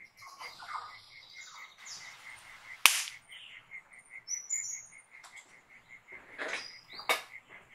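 Field recording of forest birds and crickets: a steady insect trill pulsing about five times a second under scattered high bird chirps and calls, with a single sharp crack about three seconds in.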